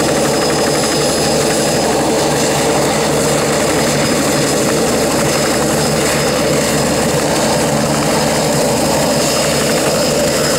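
Bell 47 helicopter with a Soloy turbine conversion running at flight power, turbine whine over the rotor beat, as it lifts off the pad into a low hover. The sound stays steady throughout, with a thin high whine above it.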